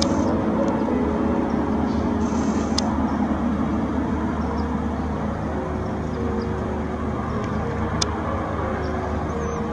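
Military attack helicopter flying past, its rotor and turbine engines making a steady drone. There is a sharp click about eight seconds in.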